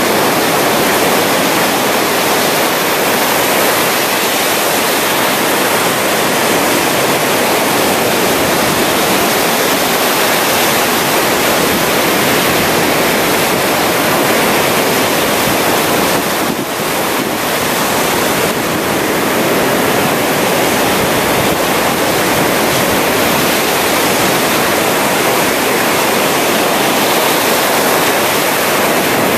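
Ocean surf breaking and washing on a sandy beach, heard as a loud, steady rush with wind on the microphone; it dips briefly a little past halfway through.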